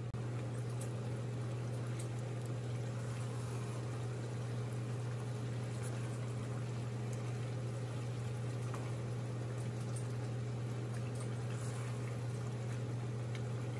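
Chicken and potato curry bubbling in a pot while being stirred with a wooden spoon, with faint scattered clicks of the spoon, over a steady low hum.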